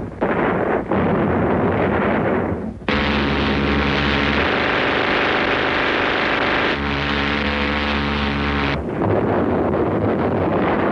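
Multi-barrel Gatling gun of an AC-130 gunship firing a sustained stream: a continuous buzzing drone that starts suddenly about three seconds in and cuts off about six seconds later, its lower tone thinning out for a couple of seconds in the middle. Before and after the drone, a dense rumble of explosions.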